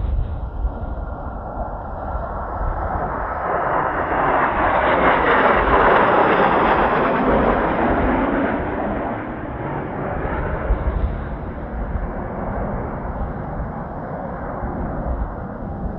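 Kawasaki T-4 jet of the Blue Impulse display team flying past: turbofan roar builds to a peak about five to seven seconds in, then fades away. Strong wind buffets the microphone underneath.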